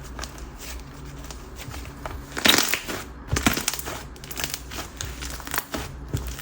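Hands squishing and stretching a whipped slime, giving irregular crackly pops and squelches, with the loudest pop about two and a half seconds in.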